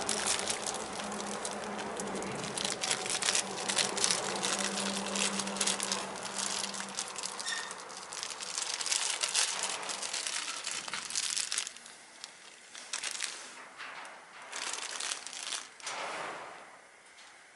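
Crinkling and crackling with many small clicks, busy for about the first twelve seconds, then patchier and quieter.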